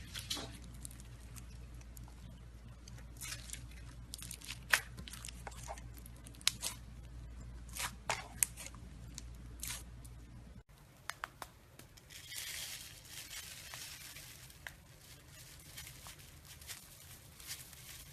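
Slime being squeezed and stretched by hand, giving scattered sharp crackling pops and clicks. About ten seconds in the sound cuts to a softer, hissy crackling.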